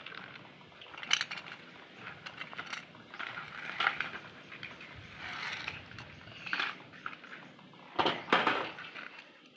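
Small metal toy cars clicking and scraping against each other as they are handled and pressed together into a stack, with a louder clatter of knocks about eight seconds in.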